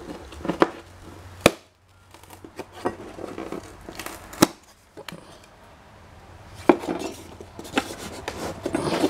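A small rest-room sign plate clacking and scraping against a wooden surface as it is picked up and handled, with rustling between. The clacks are sharp and irregular, about seven of them.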